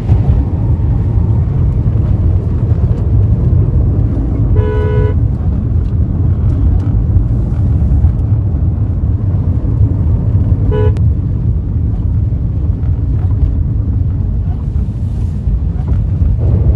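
Steady low rumble of a car driving in heavy rain, heard from inside the cabin, with a car horn sounding twice: a half-second toot about five seconds in and a shorter one near eleven seconds.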